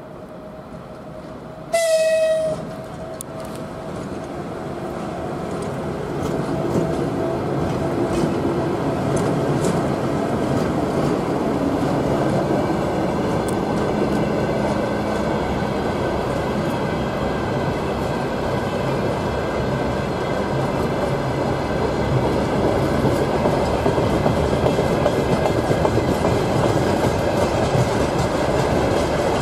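A 2ES4K 'Donchak' DC electric locomotive gives one short horn blast about two seconds in. It and its freight train of open wagons then roll past, and the rumble of the wheels on the rails grows louder and holds steady.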